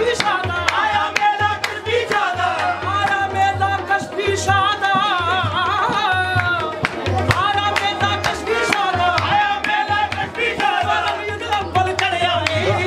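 Qawwali being performed: lead and chorus voices singing wavering, ornamented melodic lines over a steady drum pulse with sharp percussive strokes.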